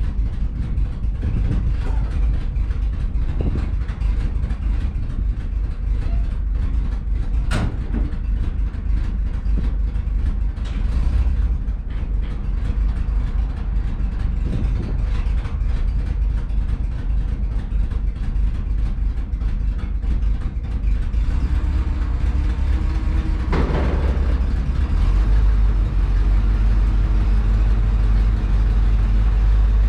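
Loaded grain truck's engine running as it is driven, a steady low rumble, with a sharp click about a quarter of the way in. Near the end the engine gets louder and holds steady.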